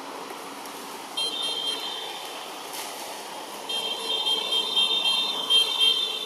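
An insect calling in a high, pulsing buzz over steady forest ambience: a short burst about a second in, then a longer run from about four seconds in.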